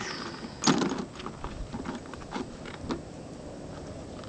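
Knocks and clicks of metal parts being handled on an outboard motor's lower unit, one louder knock near the start and a few lighter taps after it.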